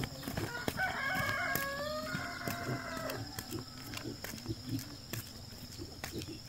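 A rooster crowing once, a single pitched call starting just under a second in and lasting about two and a half seconds, dropping in pitch partway through.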